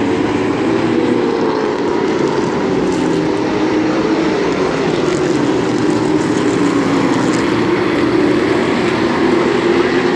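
A pack of limited late model stock cars' V8 engines running on the oval, a loud, steady engine drone whose pitch wavers up and down as the cars go round.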